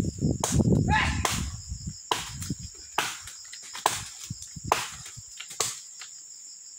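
Machete chopping into brush and small tree stems: seven sharp strikes a little under a second apart, stopping near the end. Insects buzz steadily throughout.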